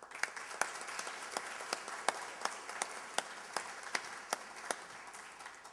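Audience applauding, with one clapper close to the microphone standing out at nearly three claps a second; the applause thins out toward the end.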